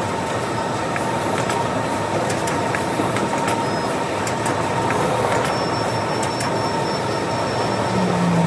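Steady din of packing-station machinery and conveyor belts in a fulfillment-center warehouse, with a constant whine above the noise and scattered light clicks; a lower hum comes in near the end.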